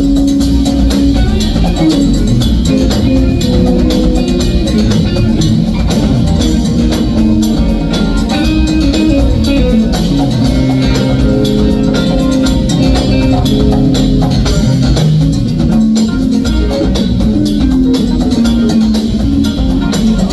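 Live band playing a Latin-tinged groove: a busy drum kit keeps steady time under held melodic notes that shift from pitch to pitch.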